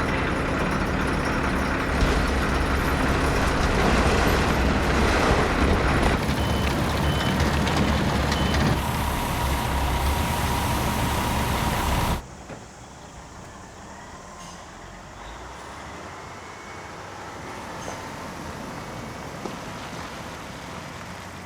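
A heavy vehicle or machine engine running loudly with a dense mechanical rumble. It cuts off abruptly about twelve seconds in, leaving a much quieter steady background hum.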